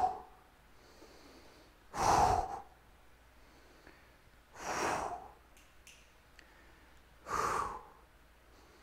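A man's sharp, forceful exhales, one about every two and a half seconds: effort breathing in time with the reps of a single-arm resistance-band fly.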